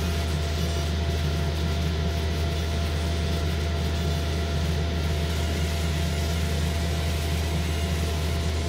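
A fiber laser marking text, with the fume-extractor exhaust drawing through the duct above it: a steady machine hum with a constant low drone and a faint thin whine above it, unchanging throughout.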